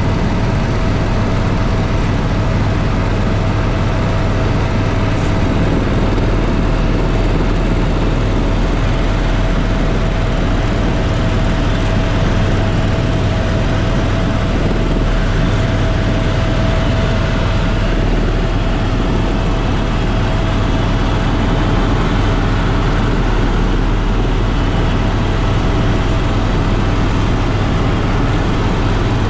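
Steady, loud mechanical rumble with a low hum and a thin steady whine over it, unchanging throughout.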